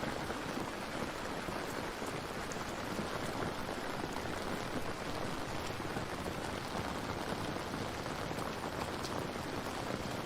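Steady rain falling: an even, unbroken hiss of rain with scattered faint drop ticks.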